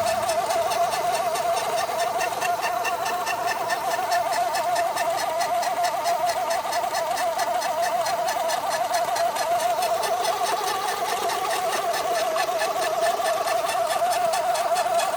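Kubota DC-105X rice combine harvester running steadily, a continuous whine pulsing in a fast, even mechanical rhythm.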